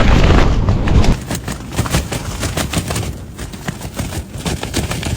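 Strong wind buffeting the microphone with a heavy rumble, then from about a second in, tent fabric flapping in the gale with rapid, irregular sharp cracks.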